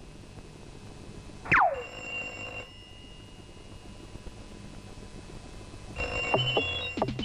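Animated-film soundtrack: a sharp falling whistle-like sweep about a second and a half in, then near the end a telephone ringing with stepped electronic tones and quick clicks.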